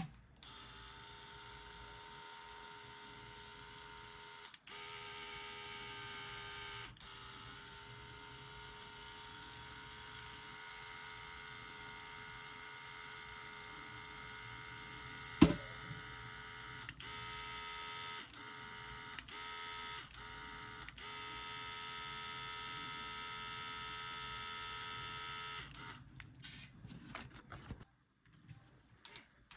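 A small electric motor running with a steady whine, cutting out briefly several times, with quick stops and restarts in the second half. One sharp click about halfway through.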